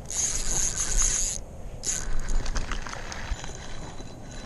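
Zebco 33 spincast reel in use on a cast and retrieve: a high whirr lasting about a second and a half, a shorter one just after, then a run of small mechanical clicks.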